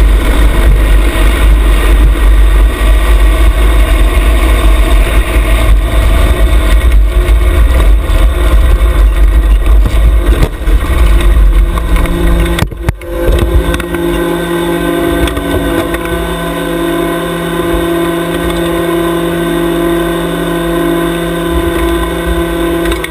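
Junior dragster's single-cylinder engine running as the car rolls, under a heavy low rumble. About thirteen seconds in the rumble drops away and the engine settles into a steady idle.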